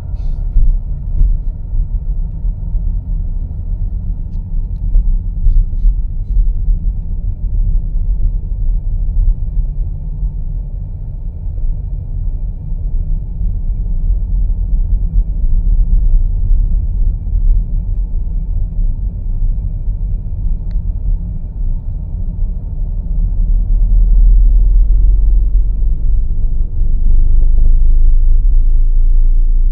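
Low, steady rumble of a motor vehicle driving, road and engine noise, growing louder about three quarters of the way through.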